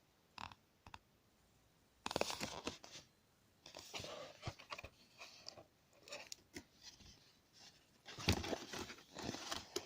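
Packaging being torn open and crinkled by hand, in irregular bursts of tearing and rustling with small clicks.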